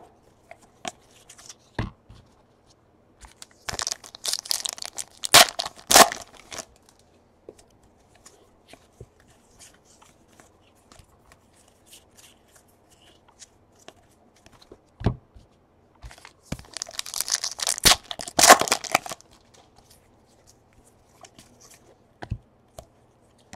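Trading card pack wrappers being torn open, twice, each a crinkly rip lasting a couple of seconds, with small clicks and rustles of cards being handled in between.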